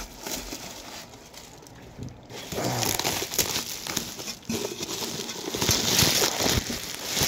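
Bubble wrap crinkling and crackling as hands handle a bubble-wrapped exhaust tip in a cardboard box. It is faint at first and grows louder and denser from about two and a half seconds in.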